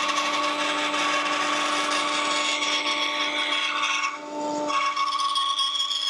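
Record Power Sabre 350 bandsaw running with a steady motor hum while its blade cuts through a strip of wood. The cutting noise eases briefly about four seconds in, then picks up again.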